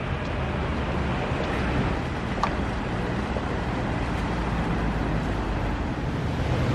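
Steady city outdoor ambience: a low, even traffic rumble, with one brief high chirp about two and a half seconds in.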